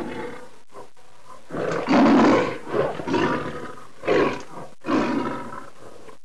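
Lion roaring in a series of roars and shorter grunts, the longest and loudest about two seconds in, played as an outro sound effect.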